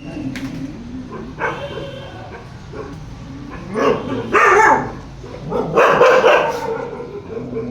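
A Caravan Hound barking and whining, with its loudest calls about four and six seconds in.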